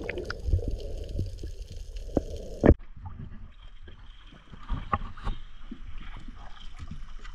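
Muffled underwater sound with a low rumble and scattered clicks. About two and a half seconds in it changes abruptly to water lapping and splashing at the surface as a swimmer hangs on the side of an inflatable dinghy.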